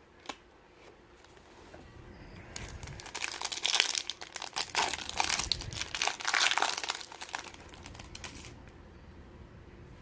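Foil wrapper of a trading card pack crinkling and tearing as it is opened by hand, with dense crackling from about two and a half seconds in that dies away near the end.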